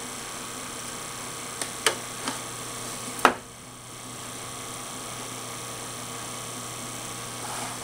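Steady electrical hum with a faint high whine, broken by a few sharp clicks about two seconds in and a louder one a little over three seconds in, as the inverter's circuit board is handled during soldering.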